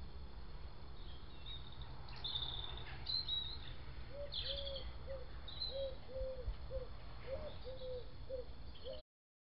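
Outdoor birdsong: scattered high chirps and short trills from small birds, with a run of short low calls, about two a second, through the second half over a low background rumble. The sound cuts off suddenly near the end.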